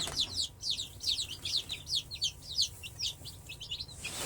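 A brood of newly hatched chicks (ISA Browns, Plymouth Rocks and Rhode Island Reds) peeping all together: many short, high, downward-sliding peeps overlapping without a break.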